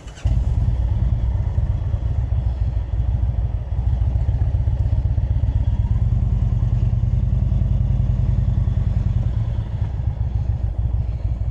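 Indian Springfield motorcycle's V-twin engine running steadily under way, a deep pulsing low rumble that cuts in abruptly right at the start.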